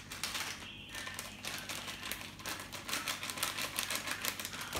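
Metal spoon clinking against the inside of a ceramic mug while stirring a drink: a quick run of light clinks, thickest in the second half.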